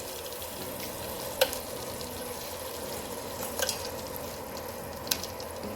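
Cumin and chillies sizzling steadily in hot oil in a pan, with three sharp clicks of a spoon striking the pan as they are stirred.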